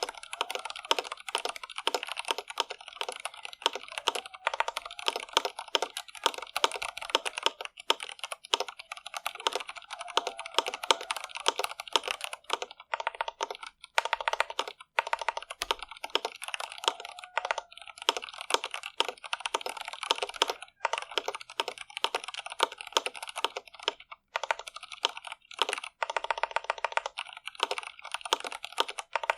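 Steady, fast typing on a mechanical keyboard with stock Cherry MX Red linear switches: a continuous stream of keystroke clacks, with brief pauses a few times.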